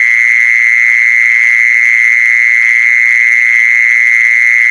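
A loud, continuous shrill trill held on one high pitch, steady and unbroken.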